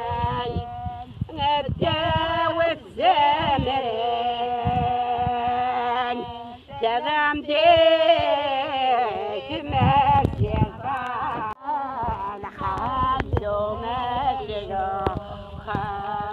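A voice singing a slow melody, holding long notes that waver in pitch, with short breaks between phrases.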